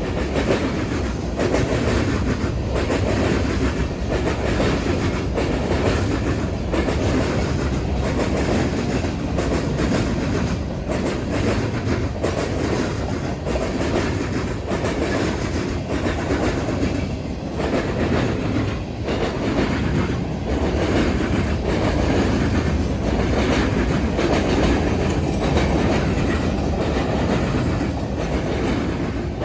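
Freight train cars rolling past steadily, with steel wheels clattering in a repeated clickety-clack as they cross the rail diamond.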